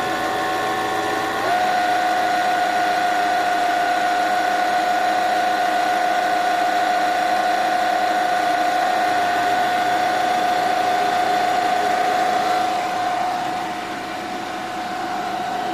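Fiat Grand Siena engine running with a steady high-pitched squeal from its alternator bearing, the sign of a worn bearing. The squeal steps up slightly about a second and a half in and gets a little quieter near the end.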